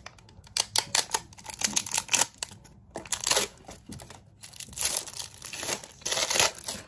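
Clear plastic wrapping crinkling and tearing as it is pulled off a spray bottle, in a quick, irregular series of rustles.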